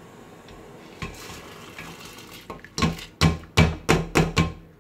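Red lentils tipped into a pressure cooker of boiling water with a soft rush, then about six sharp knocks of kitchenware against the metal pot.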